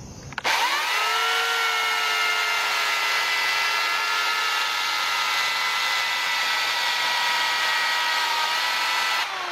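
Chainsaw spinning up and running at a steady high whine while trying to cut black locust with a chain dulled on rock, so it is barely cutting. The pitch eases slightly just before the end.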